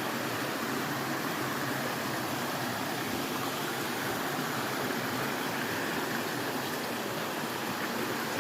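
Steady rush of water from a waterfall and its stream, an even noise that holds level without breaks.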